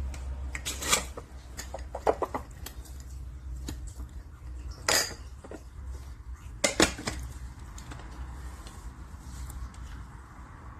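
Scattered clicks and clinks of an electric coffee grinder being handled and set up, with a sharper knock about five seconds in and a quick double clack near seven seconds.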